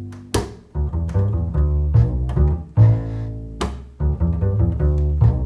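Acoustic band playing an instrumental opening: upright double bass plucking low notes under acoustic guitar strums.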